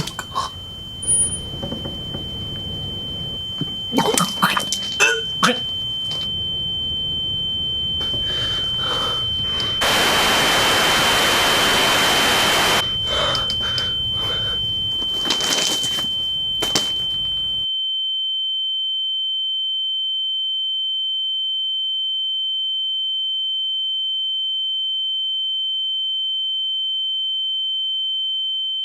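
A steady, piercing high-pitched tone, like ear-ringing, grows slowly louder. Over it come scattered knocks and thuds, and a loud burst of white-noise hiss lasting about three seconds from about ten seconds in. About eighteen seconds in, every other sound cuts out abruptly, leaving only the pure tone.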